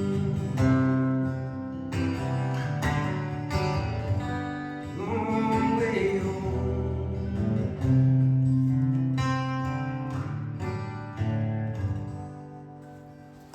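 Acoustic guitar strumming the closing chords of a song, with a voice briefly singing about five seconds in; the last chord rings out and fades away near the end as the song finishes.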